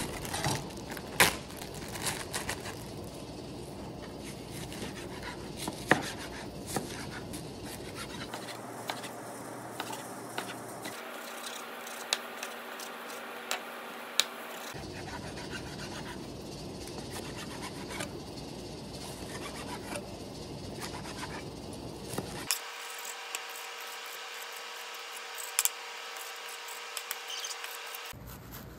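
Kitchen knife dicing raw chicken on a plastic cutting board: irregular taps of the blade on the board with slicing and scraping strokes. Crinkling plastic and a few sharper clacks in the first couple of seconds as the chicken is handled out of a zip-top bag.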